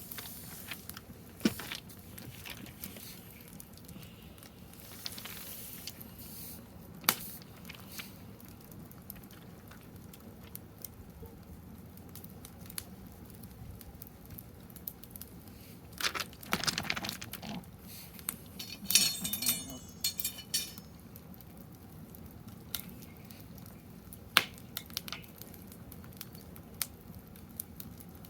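Wood fire crackling in a fire stand: irregular sharp pops and snaps over a quiet background, with a denser, louder run of crackles a little past the middle.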